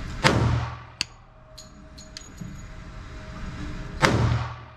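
Two shots from a Springfield Armory XD(m) .45 ACP pistol with a 4.5-inch barrel, almost four seconds apart. Each is a sharp report with a low boom that rings on in the enclosed booth of an indoor range. A single sharp click comes about a second in.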